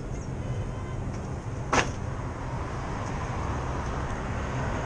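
Steady low hum of an idling vehicle engine, with one sharp click a little under two seconds in.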